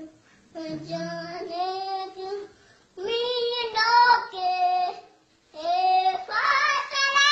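A young boy singing, in three long held phrases with brief pauses between them.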